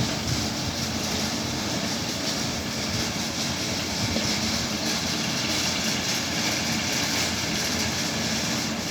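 Steady running noise of a vehicle, a continuous low rumble with hiss that does not change.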